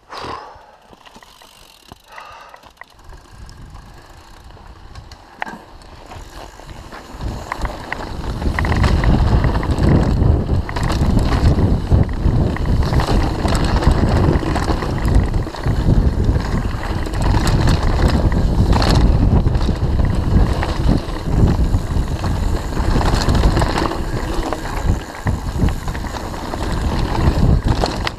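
Mountain bike descending dirt singletrack: fairly quiet for the first several seconds, then from about eight seconds in loud wind buffeting on the GoPro's microphone mixed with tyre rumble over dirt and stones and the bike rattling, as the speed picks up.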